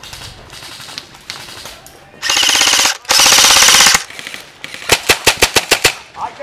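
Airsoft gun on full auto close by: two long, loud rattling bursts, then a quick string of about nine sharp shots near the end.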